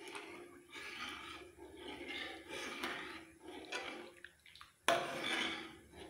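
Steel ladle stirring hot milk with fried dough pieces in a steel kadhai: repeated swishing and scraping strokes through the liquid against the pan. A sudden louder stroke comes about five seconds in.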